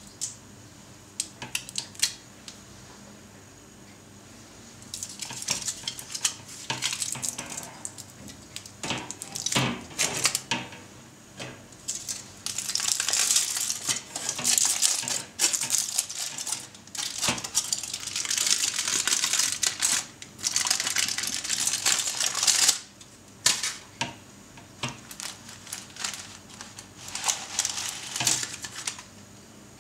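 Aluminium foil crinkling loudly as it is peeled off a metal cake ring, in long crackly stretches, with clinks and taps of the metal ring and pan against a wire cooling rack.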